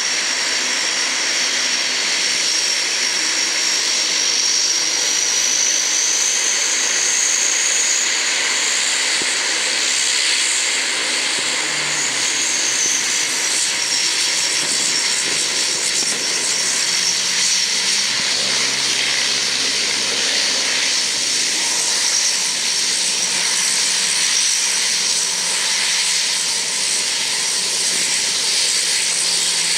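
Lockheed C-130H Hercules's four Allison T56 turboprop engines running on the ground: a loud, steady turbine whine and propeller noise. Its high whistle rises a little about a third of the way in, then settles back down.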